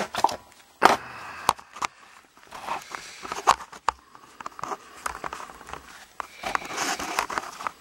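Handling noise as a camera is moved and set in place: irregular clicks and knocks with rustling in between.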